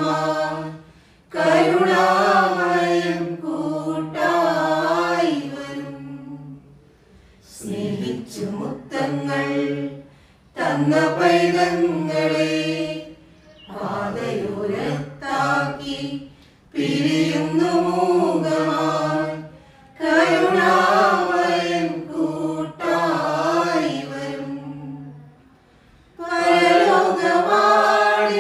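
Small mixed choir of women's and men's voices singing a Malayalam hymn for the departed, unaccompanied. The singing comes in phrases of a few seconds with brief breaks between them.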